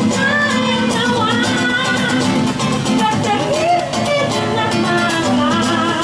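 Music with a steady beat and a melody line wavering over it.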